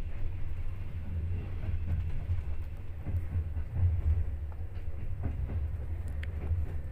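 Steady low rumble of a moving passenger train heard from inside a sleeper carriage, with a few faint clicks.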